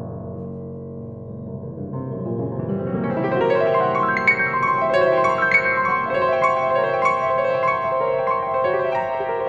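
Solo grand piano playing classical music: a soft passage in the lower-middle register that swells from about two seconds in into louder, quick figures high on the keyboard.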